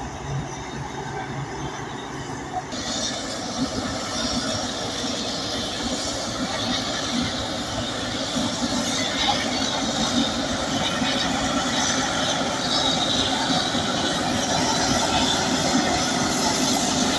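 Crawler bulldozer working under load, its engine running and its steel tracks clanking and squealing as it pushes soil. The sound fills out about three seconds in and grows gradually louder.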